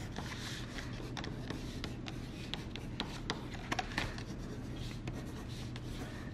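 Pencil scratching on paper as letters are written, with soft rubbing as the sheet is shifted and a few sharper ticks about three to four seconds in.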